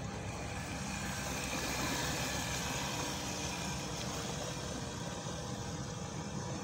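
Electric outboard motor (a Mercury 39 fitted with a 2.2 kW brushless DC motor) driving the boat away, its propeller churning the water. A steady hum with a few faint steady tones, the churning hiss swelling about a second in and easing after about four seconds.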